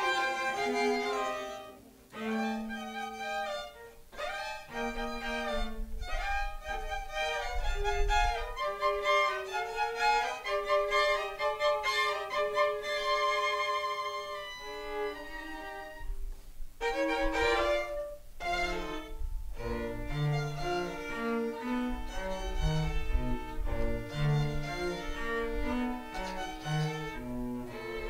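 Small bowed-string ensemble, violin with cello, playing classical chamber music in a quick succession of notes, with the cello's low line more prominent in the second half.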